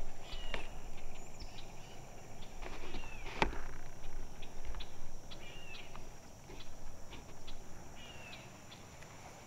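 Birds giving short chirping calls every couple of seconds over a faint steady hiss, with scattered small clicks and one sharp tick about three and a half seconds in.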